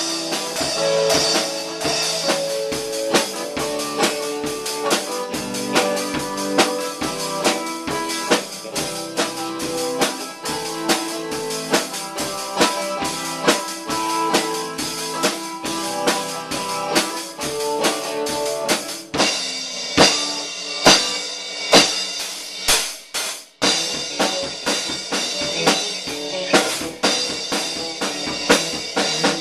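Live rock instrumental on electric guitar and drum kit: a Stratocaster-style electric guitar plays sustained chords over a steady beat of kick, snare and cymbals. About two-thirds of the way through, the guitar drops back and the drums and crashing cymbals carry the music for several seconds, with a brief break, before the guitar comes back in near the end.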